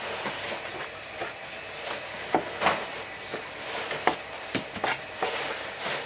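Kitchen knife chopping trevally fillet into chunks on a thick wooden chopping block: a series of irregular sharp knocks as the blade strikes the wood, roughly one or two a second.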